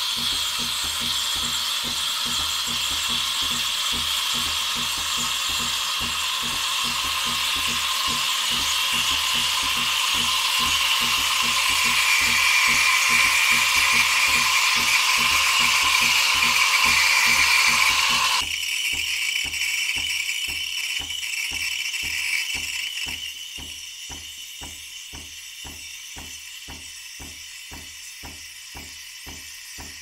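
Steam wands of several Breville espresso machines hissing loudly into milk pitchers, with a fast rhythmic ticking of about three pulses a second underneath. The hiss cuts down sharply about two-thirds of the way in and again a few seconds later as machines finish, leaving one quieter steam hiss and the steady ticking.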